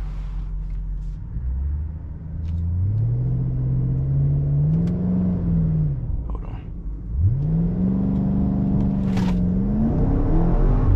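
BMW X5M's twin-turbo V8 pulling hard from a stop, heard from inside the cabin. The engine note climbs about a second and a half in, falls away about halfway through, then climbs steeply again with a gear change near the end.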